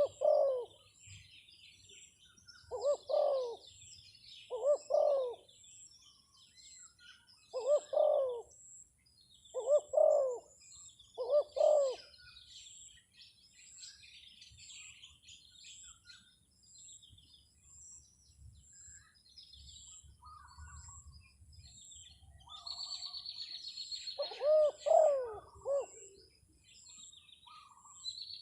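Spotted dove (terkukur) cooing in short phrases every two to three seconds for the first twelve seconds, then again after a long pause, in the coaxing 'anjur mujuk' style used to call wild doves down. Small birds chirp faintly in the background.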